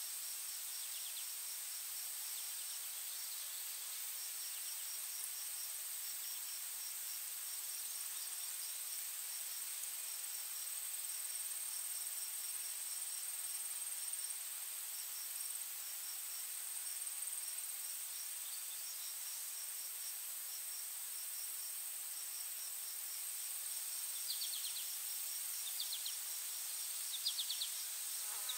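Insects calling steadily: a continuous high-pitched drone under rows of rapid, evenly pulsed chirping that breaks off briefly now and then. A few short bird chirps come in during the last few seconds.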